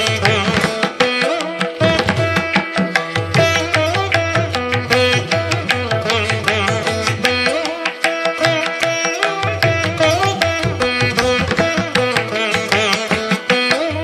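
Background Carnatic-style music led by a plucked string instrument, its notes sliding and bending in pitch over a steady held drone.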